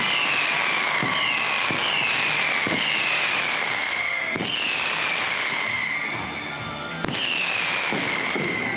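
Fireworks display: a run of whistles, each falling in pitch over about a second, over the dull thuds of shells bursting about once a second. There is a short lull about six seconds in, then another whistle and burst.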